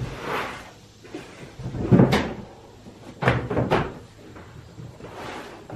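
A large, stiff side of natural-colour leather being folded on a wooden workbench: it rustles and flaps, with a loud slap onto the table about two seconds in and two more in quick succession a little over a second later.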